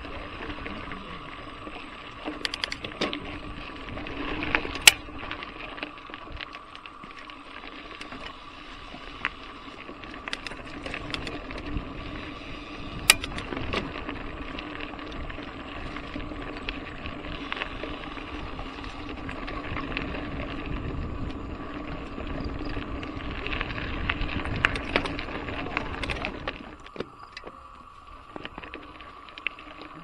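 Trek Fuel EX 7 full-suspension mountain bike riding over gravel and a dirt singletrack: steady tyre and trail rumble with frequent rattles and clicks from the bike, and two sharp knocks from bumps, about five seconds in and again near thirteen seconds. The rumble eases off shortly before the end.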